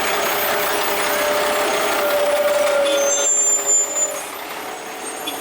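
Heavy truck running, a steady whine held over its noise. A short sharp sound comes a little past halfway, and after it the noise is quieter.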